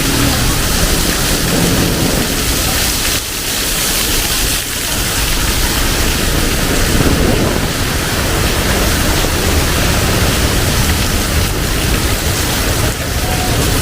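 Heavy tropical rain pouring down, a loud steady hiss of falling water.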